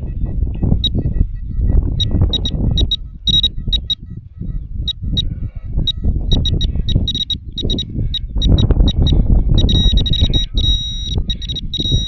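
Metal detector beeping in short, high, uneven chirps while it is worked over freshly dug soil. The beeps quicken into a near-continuous tone about two-thirds of the way in as it closes on the target, which turns out to be a coin. Under the beeps runs a loud, uneven low rumble.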